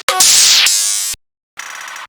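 Digital glitch sound effect: a loud burst of static-like hiss lasting about a second that cuts off abruptly, then after a short silence a quieter electronic buzz.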